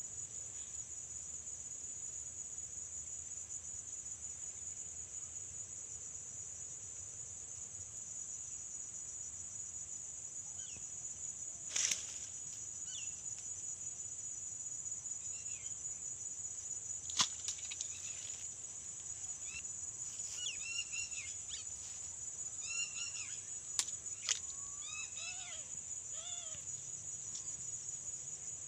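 Steady high-pitched insect chorus, crickets trilling without a break. Bird chirps come in short phrases through the second half, and a few sharp clicks break in.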